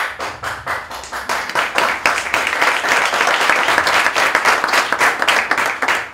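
Audience applauding: many hands clapping, swelling over the first couple of seconds and thinning out near the end.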